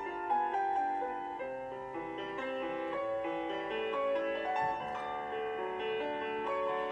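Solo piano playing slow classical-style ballet class accompaniment for pliés, chords and melody notes changing every half second or so.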